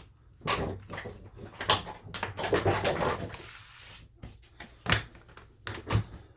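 Small tools and phone parts being handled on a workbench: a string of light clicks and knocks with some rustling in between, the sharpest clicks about five and six seconds in.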